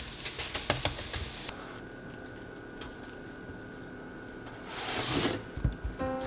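Silicone spatula stirring and scraping mushroom duxelles as it sizzles in a stainless steel pan, with quick scraping clicks, while it cooks down to a paste. About a second and a half in it cuts to a quiet, faint steady hum. About five seconds in comes a brief soft scrape of the paste being spread on a metal tray, and music notes begin at the very end.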